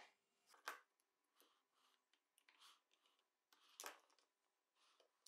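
Near silence: room tone, with two faint short clicks, one under a second in and another about four seconds in.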